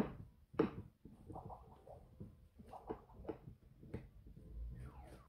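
A knife cutting down through a baked banana loaf cake: the crust crunching softly, with a string of small clicks and knocks as the blade works through and meets the plate.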